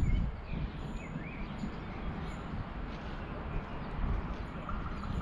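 Steady low outdoor background noise with small birds chirping now and then.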